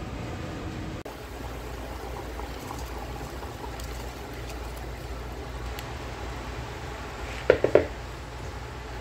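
Dry basmati rice poured into a pan of broth, with faint pattering over a steady low kitchen hum, then three quick, loud, ringing clinks near the end.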